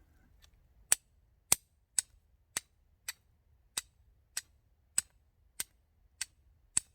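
A fire steel being struck over and over to throw sparks into a tinder bundle with char cloth. The strikes are sharp, bright clicks that start about a second in and come steadily about twice a second, around a dozen in all.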